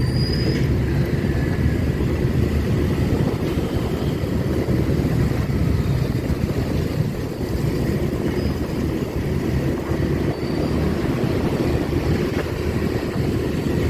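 Motorcycle running steadily on the road, heard through a chest-mounted phone's built-in microphone with wind and road noise.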